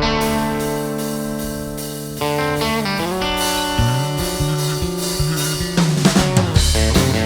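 Band music opening a song: a sustained guitar chord that changes about two seconds in, a bass line pulsing in a little later, and drums coming in near the end.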